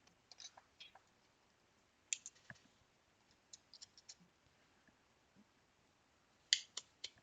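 Scattered small clicks and taps of hand tools against a circuit board during bench rework, coming in short clusters, with the loudest group near the end.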